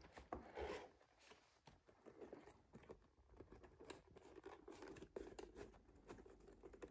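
Faint scraping and rubbing as a plastic shoe tree is pushed into a leather ankle boot and the boot is handled, with scattered small clicks.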